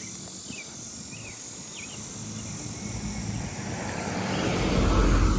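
A car approaching along the street, its engine and tyre noise growing steadily louder and peaking near the end as it passes.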